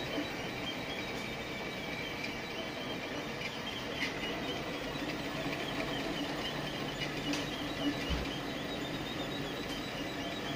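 Enclosed FDM 3D printer running a print: stepper motors whining and chirping in faint high tones as the print head moves, over a steady hiss, with a couple of sharp clicks.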